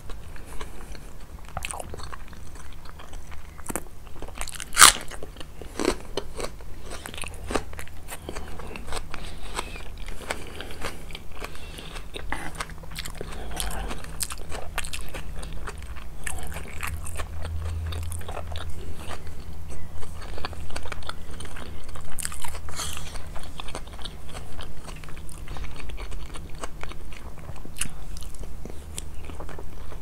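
Close-miked crunching and chewing of crispy food, with many sharp bites throughout; the loudest crunch comes about five seconds in. A low steady hum runs underneath.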